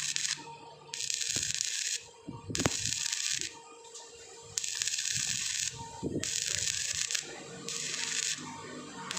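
Stick welding arc on thin steel square tube, sizzling in about five bursts of roughly a second each. It stops short between bursts while the electrode is held off the glowing weld puddle.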